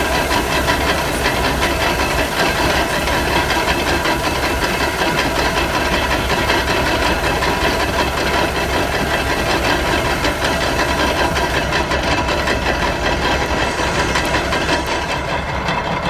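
Small portable steam engine running steadily with a hiss, driving belt-driven threshing machinery, with a steady whine over the mechanical noise.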